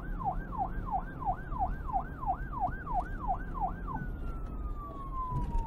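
Siren sound effect: a fast yelp rising and falling about three times a second, then a single tone sliding slowly downward for the last second and a half, over a low hum.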